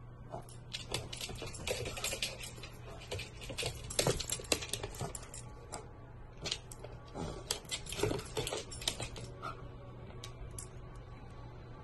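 Rapid, irregular light clicks and taps, thinning out near the end, over a steady low hum.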